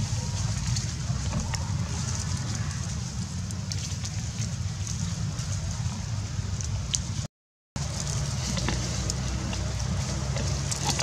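Steady outdoor background noise with a low rumble and a high hiss, flecked with small scattered crackles. It cuts out to silence for a moment about seven seconds in.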